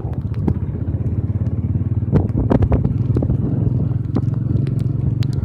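Royal Enfield Bullet 500's single-cylinder four-stroke engine running steadily under way, with rattles and knocks from the bike jolting over a broken, rocky road, thickest around two to three seconds in.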